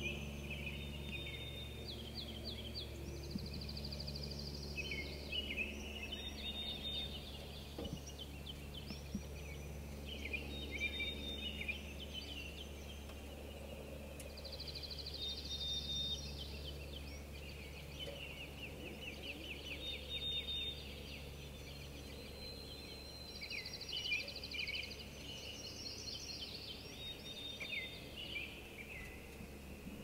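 Spring songbird chorus: several birds singing overlapping songs of high trills and quick runs of notes, over a steady low background rumble.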